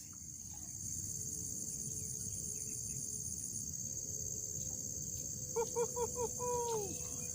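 Steady high-pitched drone of insects in chorus. About three-quarters of the way in comes a short run of four quick pitched notes, then a longer falling note.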